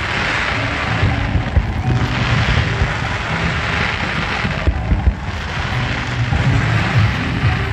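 Fireworks display going off: rapid low thuds of launches and bursts under a crackling hiss that swells and eases, dipping briefly about five seconds in.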